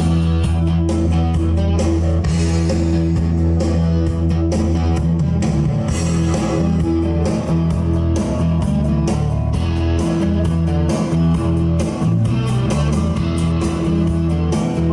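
Rock music with electric guitar and a heavy bass line, played loud through the truck's newly installed stereo and subwoofers.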